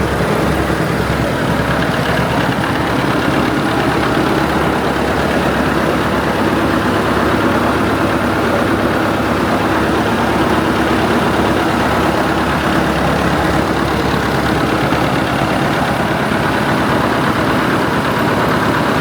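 Gardner 4LW four-cylinder diesel engine running steadily at a fast, even beat, driving a three-stage air compressor on an extension shaft.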